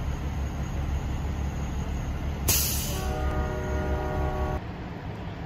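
A steady low rumble, with a short loud hiss about two and a half seconds in, then a horn holding a steady chord for about a second and a half. The horn and the rumble cut off abruptly together near the end.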